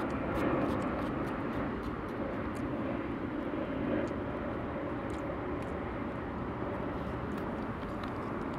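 A steady distant engine drone that slowly eases off, with faint scattered clicks of eating.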